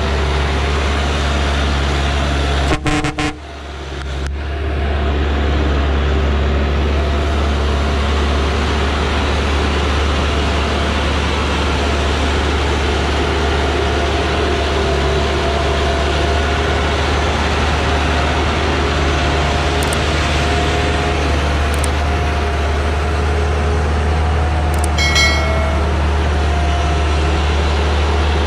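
Diesel engine of a heavily loaded Dongfeng log truck running low and steady as the truck crawls along a dirt track, with a brief drop about three seconds in. A short horn toot sounds near the end.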